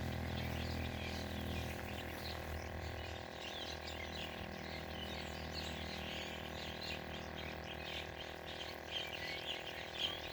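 Many small birds chirping in quick, scattered calls over a steady low hum that fades out about three seconds in.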